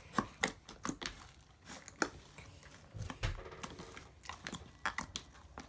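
Freshly made borax slime being pressed and dabbed around a bowl to pick up the leftover residue: irregular sticky clicks and pops.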